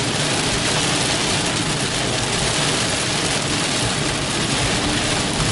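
Heavy rain on a moving car and its tyres on a wet, flooded road, heard from inside the cabin as a steady, even hiss with the car running underneath.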